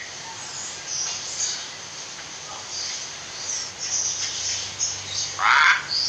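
Common hill myna giving one short, loud call near the end, over scattered faint high chirps.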